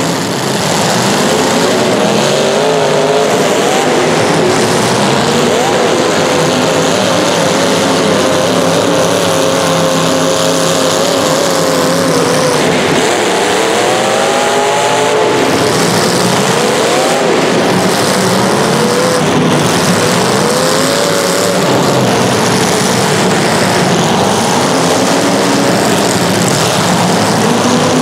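Several racing engines running at high revs together, their pitches rising and falling as they accelerate and back off, with one sweeping sharply up a little past the middle.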